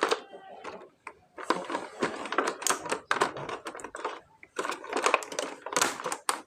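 Plastic packaging and plastic toy figures being handled: rapid runs of clicks and crinkling rustles in three bursts, with brief pauses about a second in and around four seconds in.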